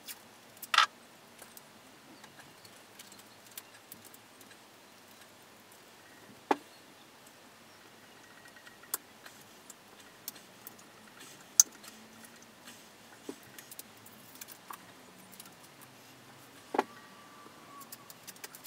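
Blue painter's tape being pulled from the roll and wrapped around the rim of a cast bandsaw wheel: scattered small clicks and ticks of handling, with four sharper snaps a few seconds apart.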